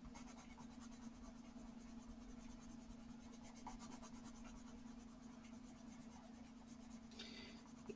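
Faint scratching of a coloured pencil in repeated strokes across smooth hot-pressed paper, over a low steady hum.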